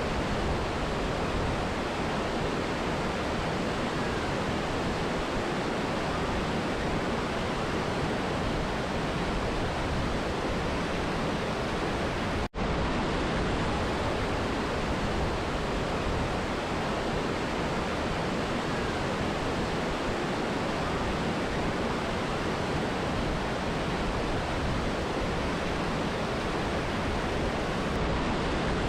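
Steady rushing water of a mountain river and waterfall, an even, unbroken roar. It cuts out for an instant about halfway through, where the recording is spliced, then carries on unchanged.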